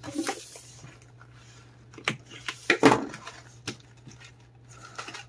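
Hands handling a thin cardboard box packed with wooden coffee stirrers. There is a brief scrape, then a few sharp taps and knocks as the box is turned and its end is worked open; the loudest comes about three seconds in.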